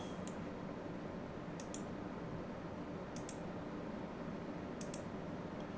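Computer mouse button clicks, mostly in quick pairs about every second and a half, over a steady low room hum.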